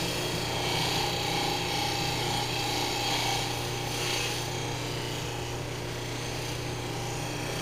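Bench buffer motor running steadily with a soft buffing wheel, and a stainless steel trim strip pressed lightly against the wheel. The strip makes a rubbing, hissing noise over the motor hum, swelling and easing as the strip is worked along the wheel.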